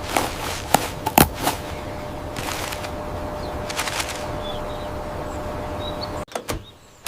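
Cartoon machine sound effects: several sharp cracks and pops in the first second and a half, with crackling bursts over a steady hum and hiss that cuts off suddenly near the end.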